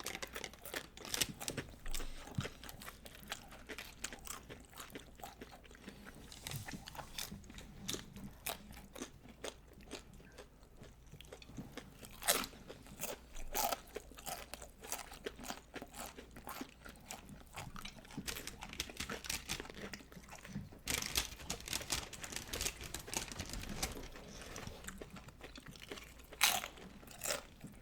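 Close-miked eating of loaded nachos: crisp tortilla chips crunching and cracking under repeated bites and chewing, in irregular bursts.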